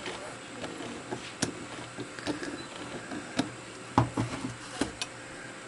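Scattered small metal clicks and knocks from a three-jaw lathe chuck worked by hand, its chuck key turning the pinion and scroll while a jaw is pushed in to catch the scroll thread; the sharpest knock comes about four seconds in.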